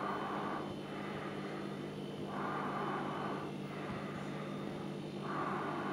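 Slow, heavy breathing, one breath about every three seconds, over a steady low hum.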